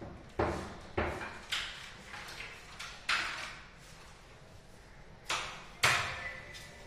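A series of sharp knocks and bangs at uneven intervals, each dying away with an echo in a bare room; the loudest comes near the end.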